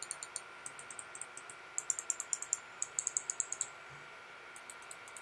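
Buttons of a Redragon Mirage M690 wireless gaming mouse being clicked repeatedly: quick, clicky presses several times a second in runs, densest in the middle, with a short pause about four seconds in.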